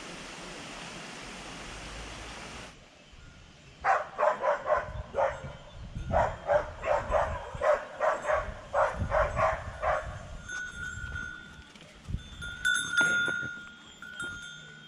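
Rushing water, cut off abruptly about three seconds in. Then an animal gives a rapid series of short loud calls, two or three a second, for about six seconds. Near the end there is a faint steady ringing tone with a sharper ring about two-thirds of the way through.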